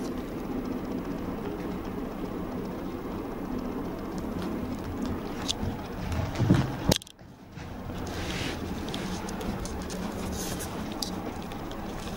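A toy poodle puppy playing on a rug: scattered small taps and scrabbling of paws and rustling against a steady background hiss of camera handling. The sound cuts out suddenly for under a second about seven seconds in, then resumes.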